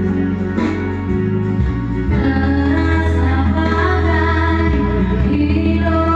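A song playing: singing over an instrumental accompaniment with a heavy, steady bass line.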